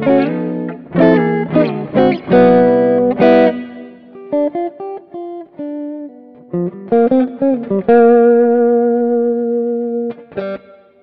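Clean electric guitar played through a Mooer GE200 multi-effects unit on a jazz preset, its 808 overdrive set to zero gain. Strummed chords for the first few seconds, then lighter single notes, then a chord held from about eight seconds in that rings out and fades near the end.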